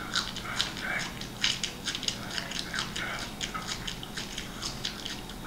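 A man chewing a raw garlic clove with his mouth open: wet crunching and smacking in short, irregular bursts, a few times a second.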